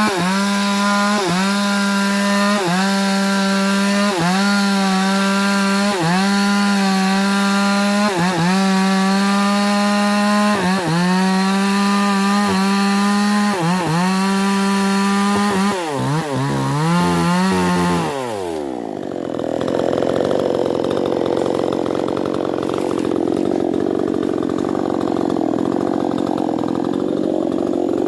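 Stihl chainsaw cutting wood at full throttle, a high steady engine note whose pitch dips briefly about every second and a half. About two-thirds of the way through the pitch wavers and falls away to a lower, uneven running.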